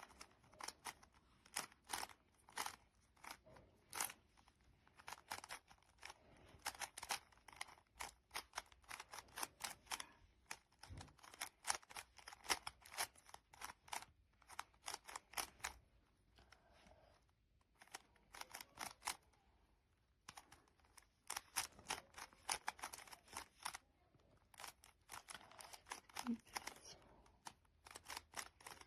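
Layers of a GAN i-Carry smart speed cube being turned by hand: quick runs of sharp plastic clicks, several a second, broken by a few brief pauses.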